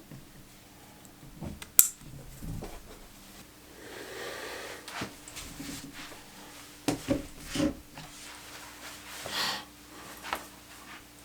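Camera strap and its hardware being handled: a sharp metallic click about two seconds in, a few clinks and knocks around seven seconds, and fabric rustling in between, over a faint steady hum.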